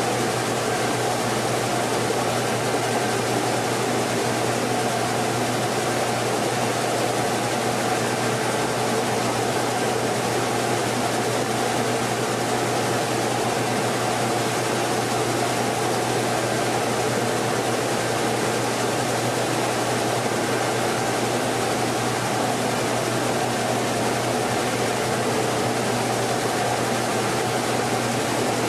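Mini rice mill's husking machine running steadily: an even mechanical rush with a constant low hum underneath.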